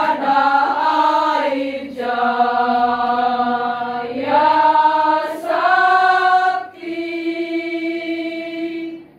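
Women's choir singing unaccompanied in sustained phrases, ending on a long held chord that stops about nine seconds in.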